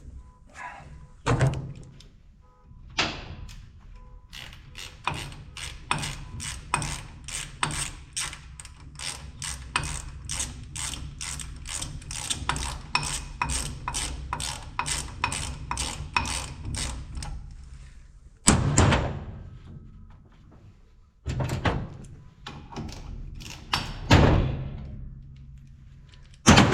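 Hand ratchet wrench clicking steadily, about three clicks a second, as a bolt holding the drill's gearbox is backed out. Several heavier metal clunks follow near the end.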